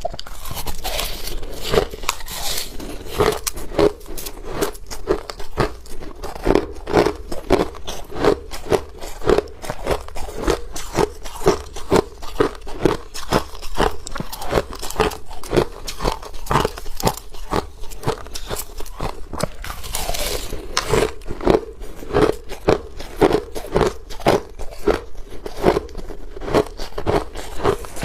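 Person biting and chewing hard ice, close to the microphone: a run of sharp, loud crunches in a steady chewing rhythm of about two bites a second.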